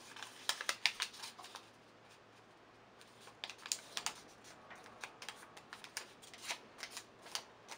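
A square post-it note handled and folded by hand: crisp paper crackles and rustles in clusters, with a quieter stretch of about two seconds near the start.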